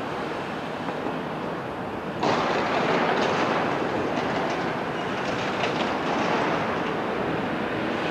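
CAT 374F crawler excavator with a C15 diesel engine working, its engine and hydraulics running steadily with some clattering. About two seconds in it suddenly gets louder as the machine takes on load and swings its upper structure around.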